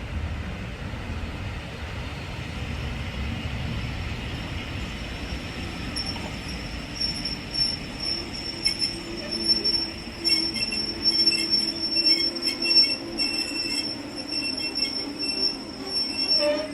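Train moving slowly along the platform, a low rumble for the first few seconds, then a steady high wheel squeal from about six seconds in, with shorter squeals coming and going over it.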